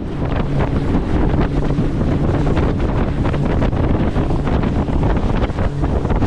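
Wind buffeting the microphone of a boat under way at speed across open sea, over the steady drone of its Yamaha 90 hp outboard and the hull slapping through the chop.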